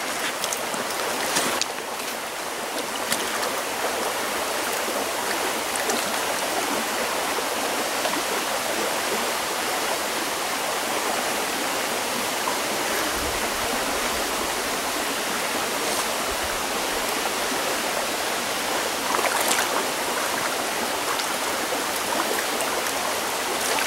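Steady rush of a shallow, rippling trout stream flowing over rocks.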